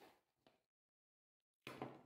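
Quiet sounds of a knife cutting a dark chocolate bar on a plastic cutting mat: a faint cut fading out in the first half second, then a short, louder handling noise near the end as the knife and chocolate pieces are moved.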